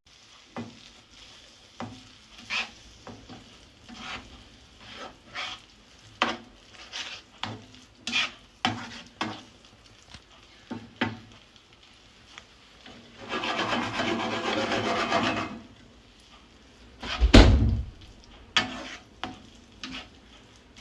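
A utensil stirring and scraping instant noodles in a cooking pan: a run of short, irregular scrapes, with a denser stretch of rasping for about two seconds past the middle, then one loud thump.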